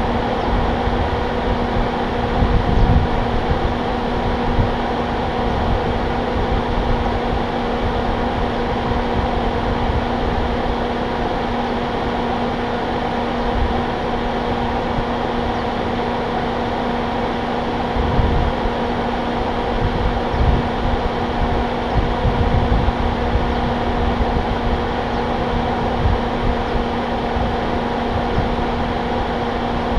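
Steady mechanical hum, like a running fan, holding one low tone with its overtones, with irregular low rumbling gusts buffeting the microphone, strongest a few seconds in and again in the second half.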